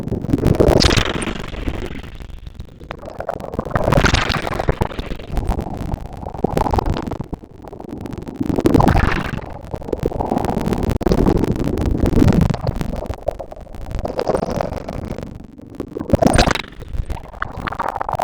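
Ocean waves breaking on a beach, the surf swelling and falling back every few seconds.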